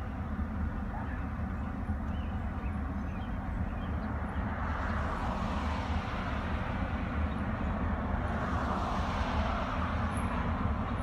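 Two approaching EMD diesel locomotives, a GP18 and a GP10, with a steady low engine rumble that grows slowly louder. Road vehicles rush past twice, about four and eight seconds in.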